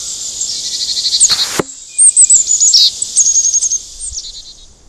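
Birds chirping in quick, high, repeated trills over a steady high insect buzz. A short rushing noise ends in a thud about a second and a half in. The sounds fade out near the end.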